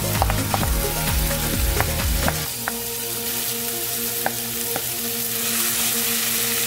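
Oil and butter sizzling in a frying pan as mashed eddoes are scraped off a bowl into the hot onion and garlic with a wooden spoon. Sharp clicks of the spoon against bowl and pan, with low thuds in the first couple of seconds as the mash drops in.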